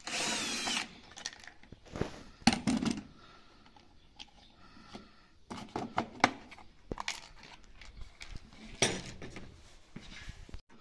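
Cordless drill-driver whirring for under a second as it backs out a screw, then a series of sharp clicks and knocks as the plastic valve cover is lifted off and the drill and tools are handled on the air conditioner's sheet-metal casing.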